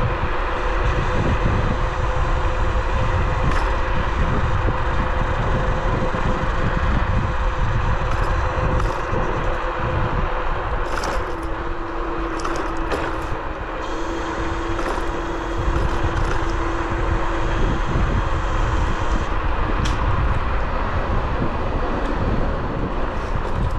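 Bluetran Lightning 72V electric scooter being ridden: wind rushing over the microphone under a steady motor whine, whose pitch drops about eleven seconds in. A few light rattles come around the middle.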